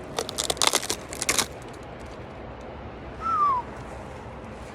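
Footsteps crunching through dry leaf litter for about the first second and a half, then a single short call about three seconds in: one clear note that slides down in pitch.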